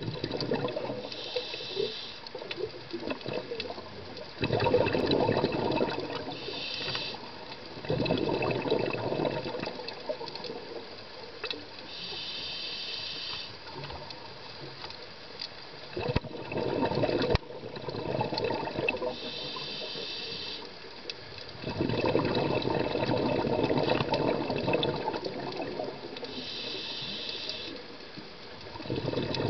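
Scuba diver breathing through a regulator underwater: a short hiss on each inhale, then a longer rush of exhaled bubbles, about five breaths in slow rhythm. Two sharp clicks a little after halfway.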